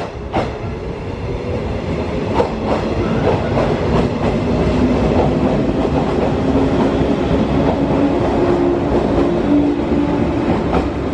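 A Shinano Railway 115-series electric train running past close by, growing louder over the first few seconds: a steady motor hum under wheels clacking over rail joints.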